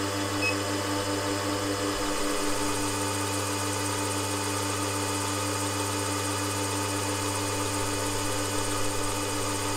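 WM18 milling machine's spindle motor running steadily, spinning an edge finder in the chuck, with a constant hum and a steady whine.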